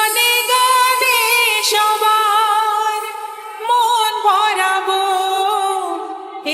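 Music: the slow introduction of a Bengali song, a sustained wavering melody over a held low note, in two long phrases.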